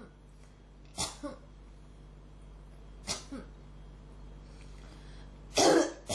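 A person coughing in short single coughs about one and three seconds in, then a louder, longer cough near the end: a persistent cough that won't stop.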